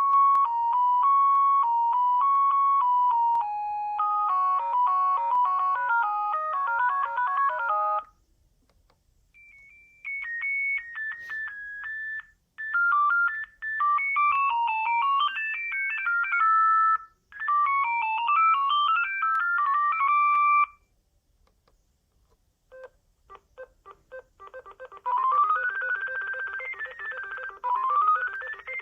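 Sagem myX-1 Trio mobile phone playing several short electronic ringtone melodies one after another, each cut off after a few seconds with brief pauses between. A run of short clicks comes before the last tune, which has quick rising notes.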